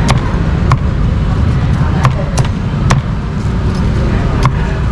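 Cleaver chopping crispy roast pork on a chopping board: about seven sharp, irregularly spaced knocks over a steady low rumble.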